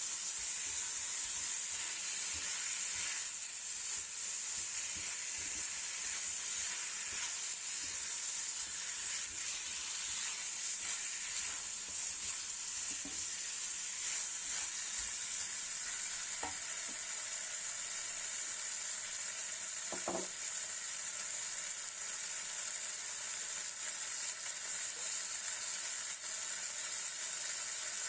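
Chicken wings sizzling steadily in a pan on the stove.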